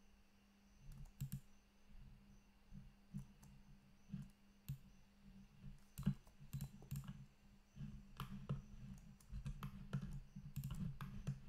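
Irregular clicks of a computer mouse and keyboard keys, some in quick runs, over a faint steady low hum.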